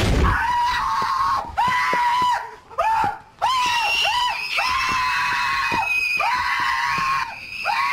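High-pitched screaming in fright, a boy's voice among it. Several long screams come one after another with short breaks between them.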